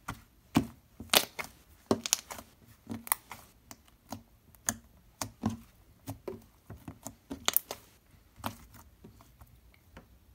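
Soft, sticky butter slime made from Playdoh mixed into slime, squished and stretched by hand, giving irregular sharp clicks and pops. The clicking thins out near the end.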